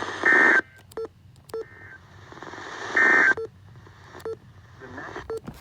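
Emergency Alert System end-of-message data bursts played over a radio broadcast: short bursts of two-tone digital signal, loudest about a third of a second in and about three seconds in, with fainter ones between and near the end. They mark the close of the severe thunderstorm warning.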